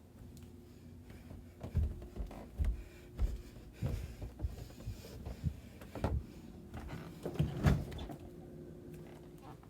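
Irregular soft thumps and knocks, loudest near two seconds in and again about eight seconds in, over a faint steady hum.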